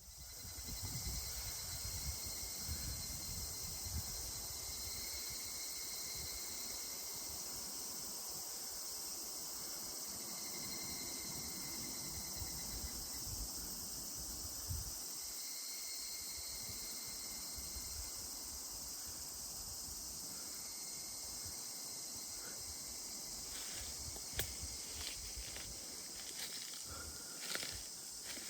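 Higurashi (evening cicadas) calling in a steady high-pitched chorus, with a few light clicks near the end.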